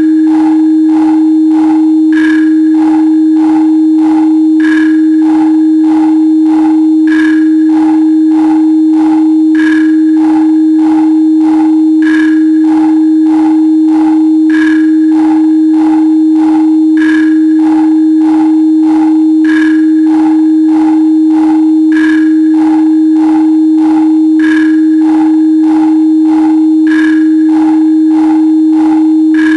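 Continuous pure sine tone at 314.15 Hz, held steady, with a synthesised beat pulsing over it at 97 beats a minute and a brighter, higher accent on every fourth beat, about every two and a half seconds.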